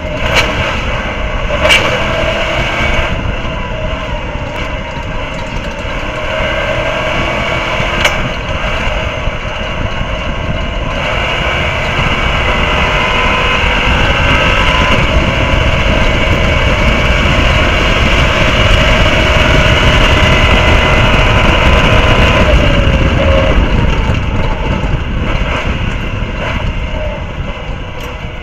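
Stadium Super Truck V8 engine running hard at race speed, heard on board, with heavy wind and road rumble on the microphone. A few sharp knocks come through in the first eight seconds, and the sound grows louder through the middle before easing near the end.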